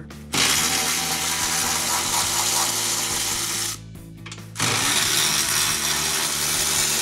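Power ratchet spinning a bolt out with a 15 mm socket, running in two bursts of about three seconds each with a short pause between.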